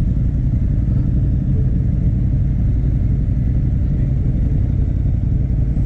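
Ducati motorcycle engine idling steadily close by, a continuous low rumble.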